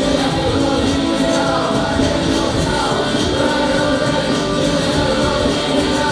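Music with singing voices, playing at a steady, loud level.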